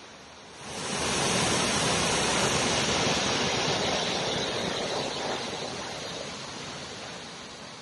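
Rushing water of Multnomah Falls, a steady even noise that rises sharply about half a second in and eases off gradually over the last few seconds.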